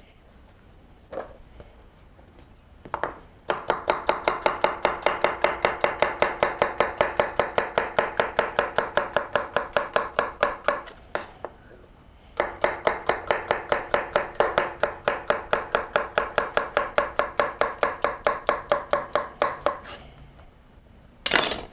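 Chef's knife slicing a peeled, seeded cucumber on a wooden cutting board in quick, even strokes, about five a second, in two long runs with a short pause between them. A single sharp knock near the end.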